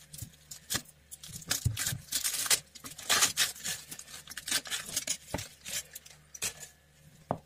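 Tableware and food being handled while a table is set: scattered light clinks and taps, with short bursts of rustling.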